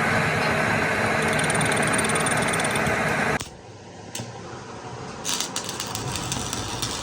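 A machine running with a loud, steady noise that cuts off abruptly about three and a half seconds in, followed by quieter quick clicks and rattles.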